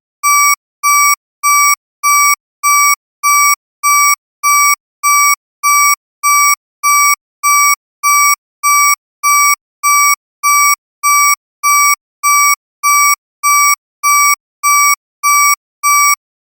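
Electronic alarm beeping: one unchanging high tone repeated in short, even pulses, about three beeps every two seconds.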